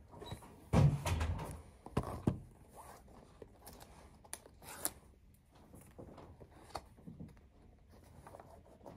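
White cardboard packaging of an Apple Watch Milanese Loop band being handled and slid apart: a heavy thump about a second in, then sharp knocks and scrapes of the cardboard sleeve and tray.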